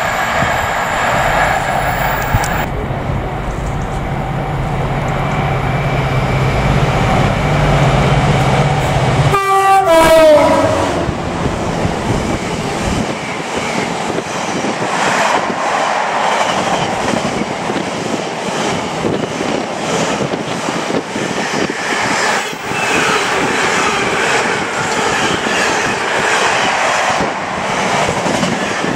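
Container freight train passing through a station: the locomotive's low engine hum builds as it approaches, then it sounds its horn once, for about a second, falling slightly in pitch as it passes. The container wagons follow with a steady rhythmic clatter of wheels over the rail joints.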